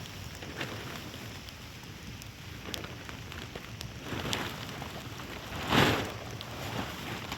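Heavy rain falling, with scattered drops tapping on a surface close by. A short, louder rush breaks in a little under six seconds in, with a smaller one a second and a half before it.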